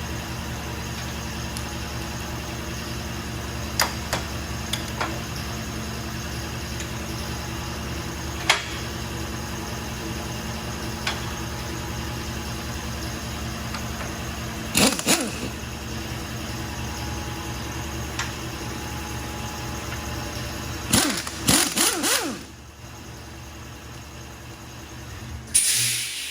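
A steady machine hum with a few sharp clicks and several short, loud bursts. The hum stops about three-quarters of the way through, and a short hiss comes near the end.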